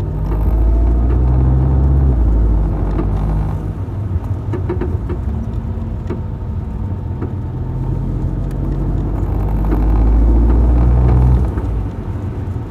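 2015 Volkswagen GTI (MK7) driving, its engine rumbling low and pulling hard twice, with a few sharp clunks from the front end between the pulls. The front-end clunking persists after new front sway links, wheel bearings, hubs and engine and transmission mounts, and its cause is unknown.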